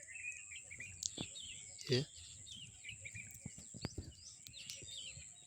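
Birds chirping faintly in the background: many short, high calls, over a steady high hiss, with a few light clicks.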